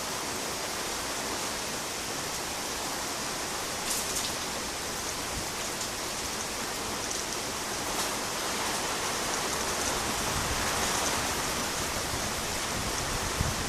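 Heavy rain falling steadily as an even hiss, with a couple of sharper drop taps. In the last few seconds a low rumble of thunder builds beneath the rain.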